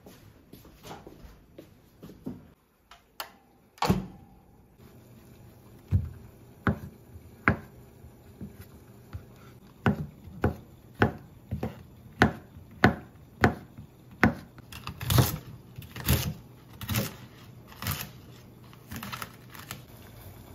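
Kitchen knife chopping on a wooden cutting board: a slow, uneven run of sharp knocks, about one or two a second, with a few scattered ones at the start.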